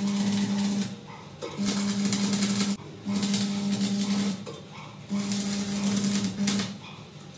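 Electric arc welding in short runs: a crackling hiss over a steady electrical buzz, switched on and off four times, each run lasting about a second.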